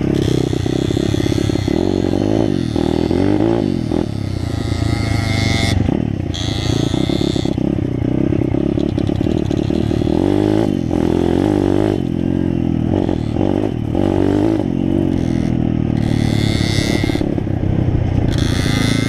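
Dirt bike engine running hard while ridden, its pitch repeatedly rising and falling as the throttle is opened and eased off.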